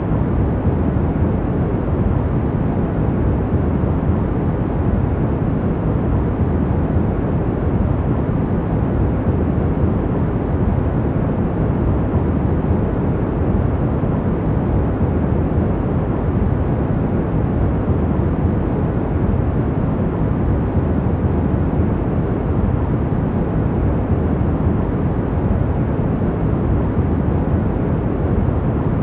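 Steady, unchanging sleep-aid noise with a deep rumble, most of it low down and little hiss on top.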